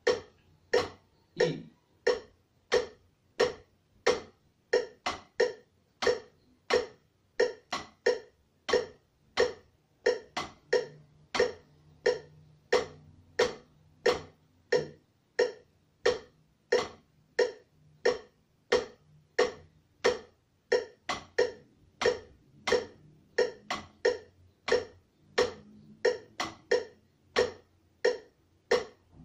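Wooden drumsticks striking a rubber practice pad, playing a snare reading exercise of quarter notes and dotted figures at a steady 90 beats per minute: crisp, evenly spaced taps, some falling in quick pairs.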